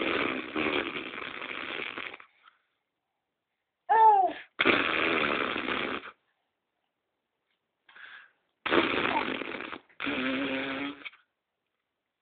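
A baby's breathy, raspy vocal noises in several bursts a few seconds apart, with a short high squeal about four seconds in.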